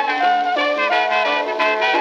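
Early-1920s hot jazz band of trumpet, trombone, clarinet, piano and drums playing together, with the trumpet on top, from an acoustically recorded 78 rpm record. The sound is thin, with no low bass and no high treble.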